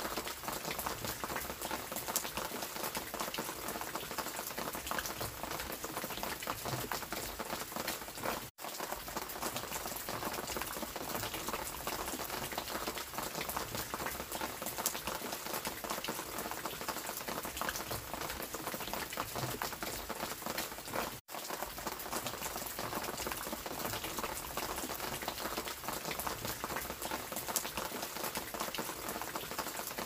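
Heavy rain: a dense, steady patter of raindrops. The sound cuts out to silence for an instant twice, about a third and about two-thirds of the way through.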